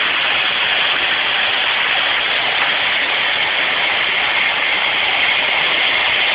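Welding arc at a Motoman robot's torch, burning continuously with a steady, loud hiss.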